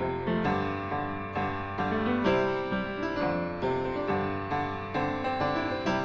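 Background piano music, notes struck at an even pace, about two a second, each dying away.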